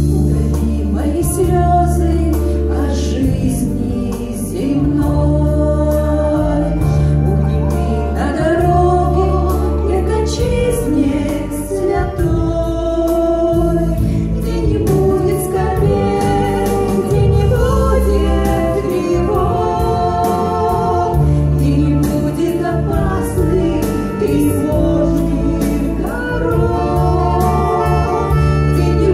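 Two women singing a Christian song together into microphones over an instrumental accompaniment with sustained low bass notes.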